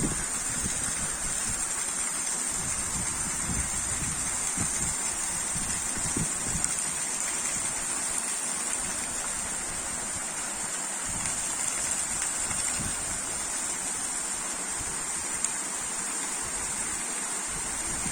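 Spring-fed waterfall falling off a low cliff: a steady rush of splashing water.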